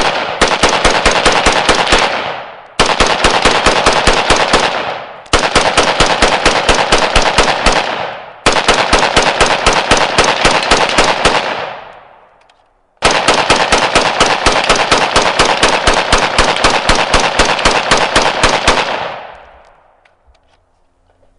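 Huldra Mark IV piston-driven AR-15 carbine in 5.45×39 firing rapidly, about six shots a second, in long strings with brief breaks and a pause of about a second midway, ending with the echo dying away. The rifle is running uncleaned and unlubricated on corrosive Russian surplus ammunition as it passes 1,000 rounds.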